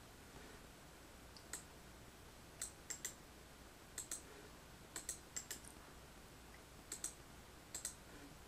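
Computer keyboard keys and mouse buttons clicking, faint, in short pairs and small clusters about once a second.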